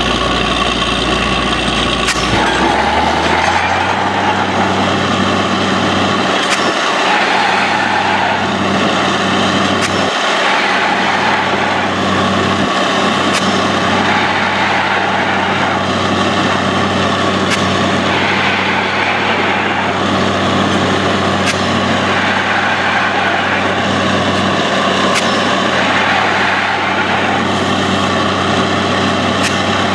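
Truck-mounted borewell drilling rig running loud and steady as it drills, its engine note under a broad rushing noise of air and cuttings blowing up out of the bore. A little after the start the deepest hum drops away and the engine settles to a higher steady note.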